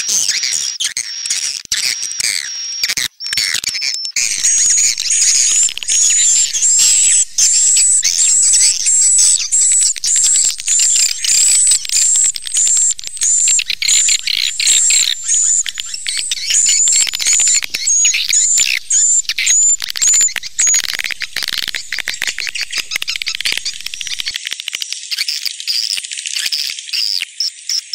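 Swiftlet call recording: rapid, high-pitched twittering chirps of edible-nest swiftlets, played as a lure sound for swiftlet farming. Through the middle a run of sharp high chirps repeats about twice a second, then gives way to a denser buzzing twitter.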